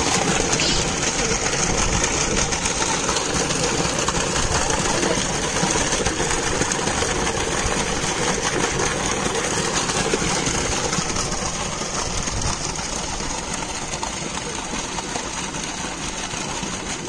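Farm pump set running, water gushing steadily from its outlet pipe into a concrete tank, over the steady hum of the pump motor. It eases off a little in loudness near the end.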